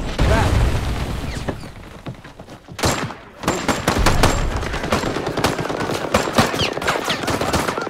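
Battle gunfire: a deep low blast at the start, then dense overlapping rifle and machine-gun fire. After a short lull about three seconds in, sustained rapid automatic fire resumes.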